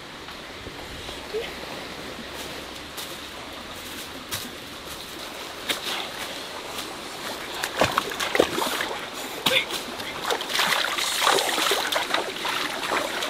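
Stream flowing over rocks, with irregular splashing in the shallow water starting about halfway through and growing busier near the end.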